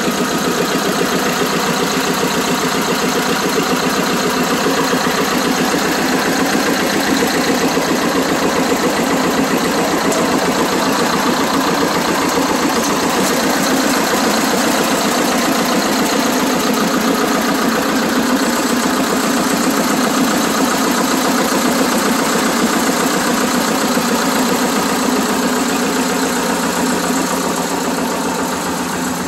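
Vladimirec T25A1 tractor's two-cylinder air-cooled diesel idling steadily, with the loping two-cylinder beat that makes it sound like an old John Deere.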